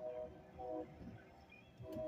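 Faint music with held notes that stops and starts, quieter through the second half, with a short click near the end.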